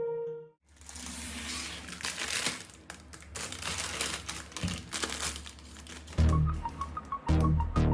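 Crinkling with many small clicks for about five seconds, like plastic being handled. About six seconds in, background music comes in with a low beat and a repeating high pip.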